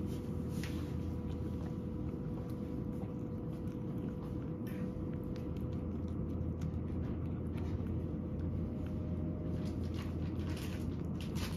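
A cat chewing soft food from a ceramic bowl: scattered small wet clicks and bites, coming thicker near the end, over a steady low hum.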